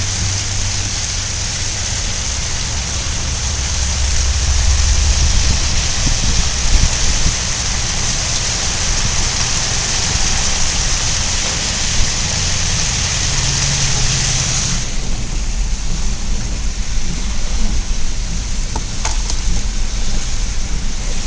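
A vehicle driving slowly on a wet, slushy road: a steady hiss of tyres and spray over a low engine and road rumble. The high hiss drops away suddenly about two-thirds of the way through.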